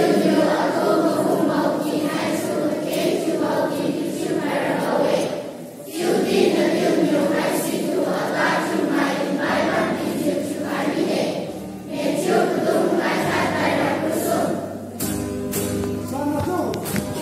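A choir of children singing together in phrases, with brief breaks between them about six and twelve seconds in.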